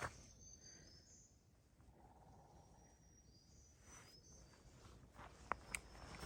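Near-quiet forest with faint, thin, high bird calls in two short phrases, and a couple of sharp footstep clicks on the trail near the end.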